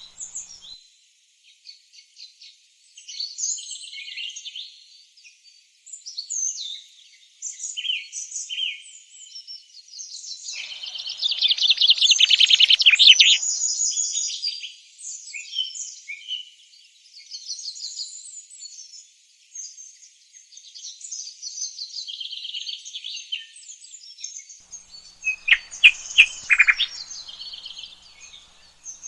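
Several small birds chirping and singing, their calls overlapping. There is a louder rapid trill about ten to thirteen seconds in, and a few sharp, louder calls near the end.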